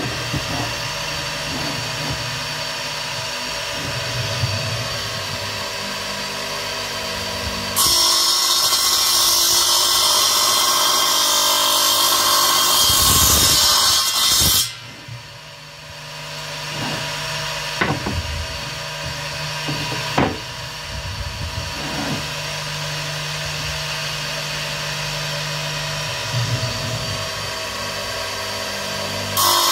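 DeWalt radial arm saw running, with a louder stretch of blade cutting noise through the wooden door frame in the middle. The sound drops suddenly about halfway, builds back up to a steady hum, and a few sharp knocks come a few seconds later.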